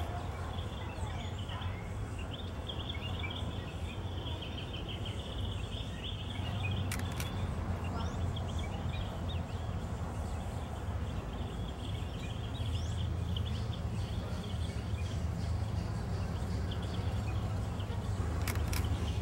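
Outdoor square ambience: a steady low rumble of distant traffic under many small bird chirps, with a camera shutter clicking about seven seconds in and again near the end.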